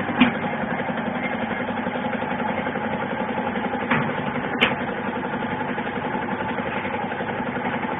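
Air-operated eye-drop bottle cap sealing machine running with a steady mechanical hum. Three short sharp clicks stand out, near the start and twice about four seconds in.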